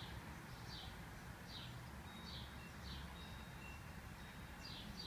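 A small bird chirping faintly over and over, each chirp short, high and falling in pitch, about once a second, over a low steady hum.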